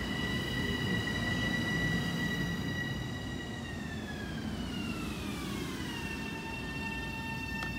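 Long Island Rail Road electric multiple-unit train running past and pulling away, with a low rolling rumble under a high electric whine. About halfway through, the whine drops in pitch over a couple of seconds, then holds steady at the lower pitch.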